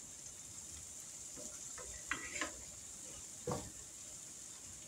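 Cornbread batter frying in hot oil in a skillet, sizzling steadily, with a few light clinks of a metal spoon against the pans about two seconds in and again at about three and a half seconds.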